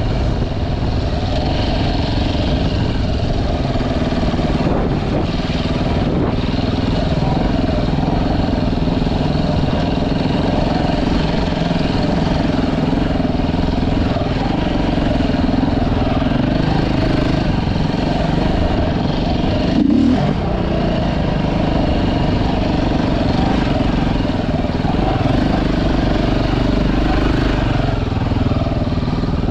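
A motor vehicle's engine running steadily under way, with heavy low rumble and wind noise on the riding camera's microphone.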